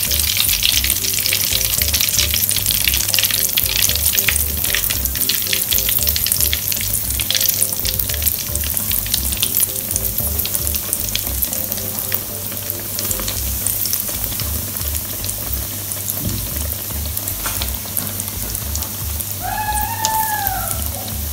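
Yeast-dough donuts deep-frying in hot oil, a steady crackling sizzle that is busiest in the first half, as fresh dough has just gone into the oil.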